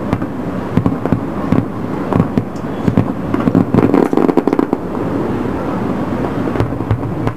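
Fireworks display: rapid bangs and crackles of aerial shells bursting, coming thick for about five seconds and then thinning out.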